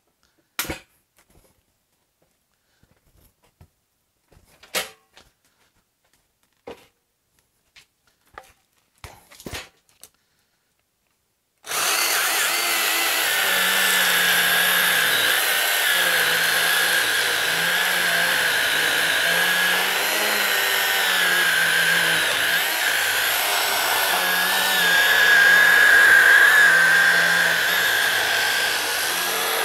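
A few scattered knocks and clunks as the log is turned by hand. About twelve seconds in, a Milwaukee M12 Hatchet 6-inch battery mini chainsaw starts and cuts steadily into a log: an even high whine with the rasp of the chain through wood.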